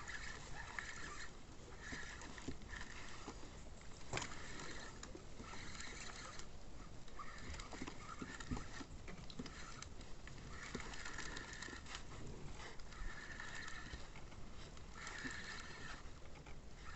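Animal calls in repeated bursts about a second long, each holding a steady pitch, over a steady outdoor background, with one sharp click about four seconds in.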